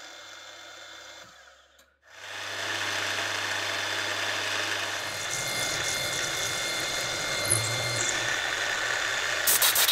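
Milling machine running quietly, then, after a short break, the louder steady sound of an end mill cutting a recess into a metal disc on a rotary table.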